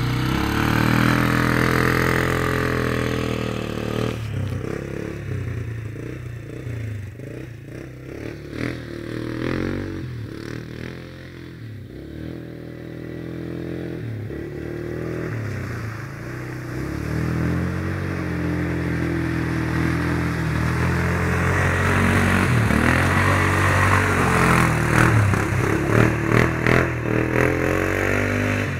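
Polaris Scrambler 500 quad's single-cylinder four-stroke engine revving up and down as it is ridden off-road. It fades as the quad moves away and grows loud again from about two-thirds of the way in. Clattering knocks come in over the last several seconds.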